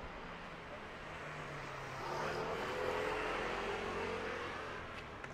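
A motor vehicle passing close by on the street, growing louder about two seconds in and fading away after a couple of seconds, over a steady low street hum.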